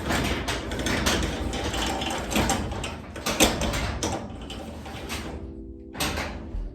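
Garage door opener running as the door moves, a rattling, clicking mechanical noise. It stops briefly near the end and then starts again.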